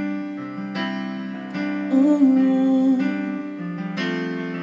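Yamaha electric keyboard playing slow, sustained piano chords as a ballad accompaniment, a new chord every second or so. A short sung note wavers over it about two seconds in.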